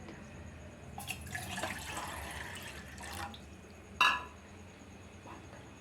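Water splashing and pouring for about two seconds, then a single sharp clink about four seconds in.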